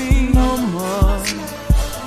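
Background pop/R&B song with a sung melody over a steady kick-drum beat.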